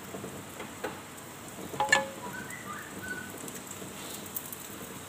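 Carrot omelette sizzling in oil in a non-stick frying pan, with a light knock and then a sharp metal clink of the spatula against the pan about two seconds in.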